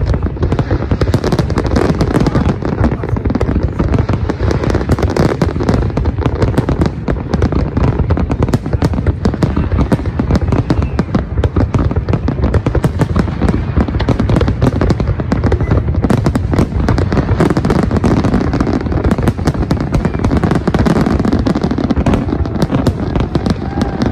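Fireworks display: a dense, unbroken barrage of rapid, overlapping bangs and crackles.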